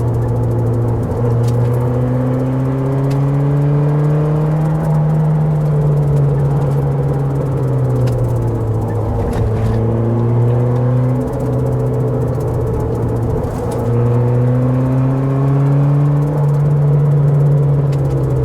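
Car engine heard from inside the cabin, its pitch climbing slowly under load and then dropping back, about three times, as the car accelerates and changes gear.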